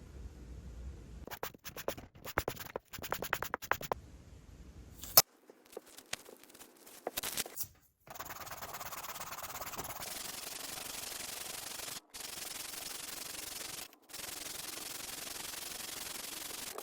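Hardened cardboard lure blank being sanded or filed. First come quick scratchy strokes and clicks, with one sharp click about five seconds in, then a steady rasping noise broken by two short gaps.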